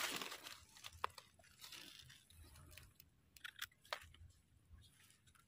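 Faint crackles and snaps of soil and dry leaf litter as a wild white mushroom is worked loose and pulled up by hand, a few separate clicks rather than a steady sound.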